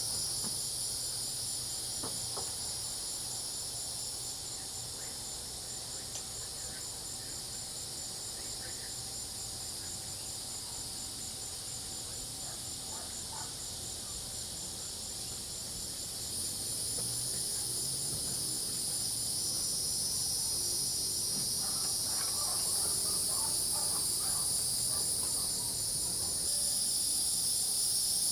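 Insect chorus of crickets and cicadas: a steady, high-pitched trilling with one evenly pulsing chirp running through it. The highest band drops out about four seconds in and comes back about sixteen seconds in, when the chorus gets a little louder. Faint, scattered frog calls sound lower down.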